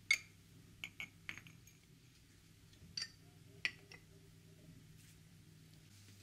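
Porcelain mugs clinking as they are hung on the metal hooks of a wall rail. There are a handful of light, sharp clinks in two groups: the loudest comes right at the start, and a second group comes about three seconds in.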